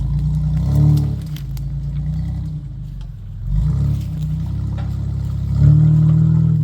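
Off-road 4x4 truck engine running low and revving up in short surges: briefly about a second in, again near four seconds, and longest and loudest near the end.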